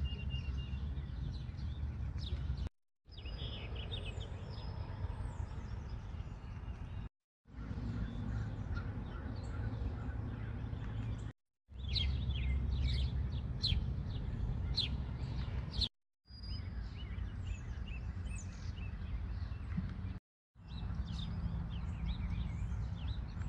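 Outdoor ambience of birds chirping and calling over a steady low rumble. It comes in several short stretches of about four seconds, each cut off abruptly by a brief silence. The bird calls are busiest about halfway through.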